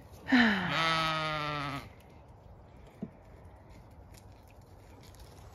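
A Zwartbles sheep bleats once, a long call of about a second and a half whose pitch drops at the start and then holds steady.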